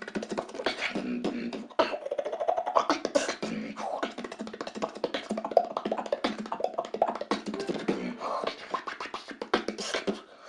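Solo vocal beatboxing heard over Ventrilo voice chat: a continuous fast stream of mouth-made drum clicks and hisses mixed with short hummed tones, with almost no deep bass.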